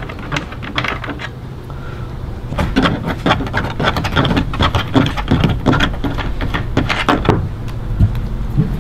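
Rapid clicking and rattling of plastic trunk trim in a 2016 Mustang GT as its screw-off plastic fasteners are worked loose by hand, the clicks growing dense after a couple of seconds, over a steady low hum.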